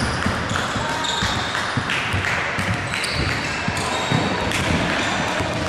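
Basketballs bouncing and being caught on a hardwood gym floor during a passing drill, in irregular thuds. Brief high-pitched sneaker squeaks come and go, echoing in a large hall.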